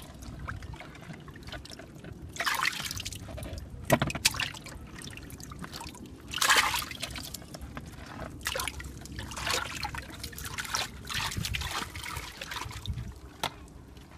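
Water trickling and wet mud being handled in short, irregular splashy bursts, with a sharp knock about four seconds in.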